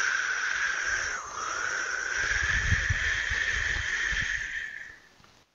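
Wind noise on a recording's microphone: gusty low rumbling under a steady high-pitched hiss, fading out near the end.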